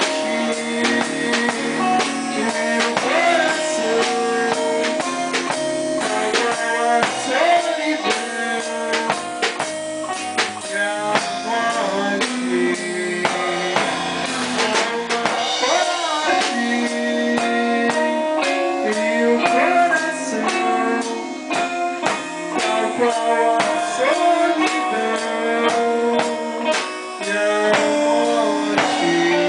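Live rock band playing a song together: a drum kit with cymbals, electric guitars and a bass guitar, continuous and loud.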